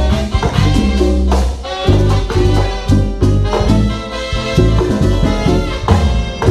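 A live band playing an instrumental passage: brass horns over bass and a steady drum beat.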